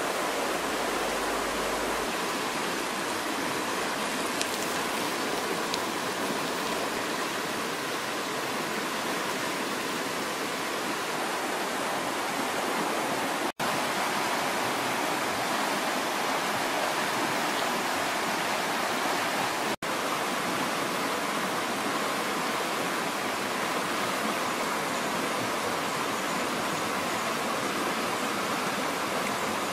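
Fast-flowing muddy river rushing over rocks, a steady even roar of water, broken twice by momentary dropouts.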